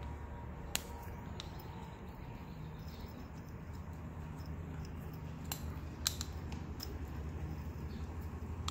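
A few sparse, light metallic clicks from hand tools on the bottom bracket parts as the crank bolt is turned to press a new bearing onto the spindle, over a low steady hum.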